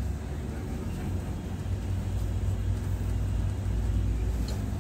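Steady low drone of a Volvo B11R coach's six-cylinder diesel engine and road noise, heard from inside the cab while cruising, with a brief click near the end.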